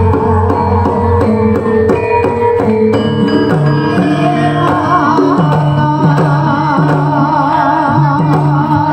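Live Javanese gamelan music: metallophones ring held notes over hand-drum (kendhang) strokes, and a wavering higher melody line comes in about halfway through.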